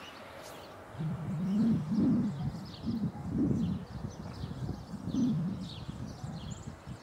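A dove cooing, a run of low coos that starts about a second in, with small birds chirping faintly.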